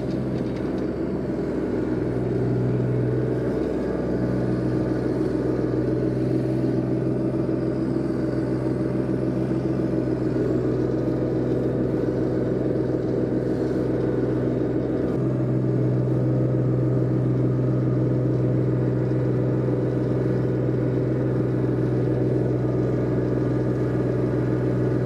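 Turbocharged John Deere 1025R's three-cylinder diesel engine running steadily under load as the tractor pushes snow with its front blade; the engine note dips briefly a few seconds in and shifts to a slightly different steady pitch about halfway through.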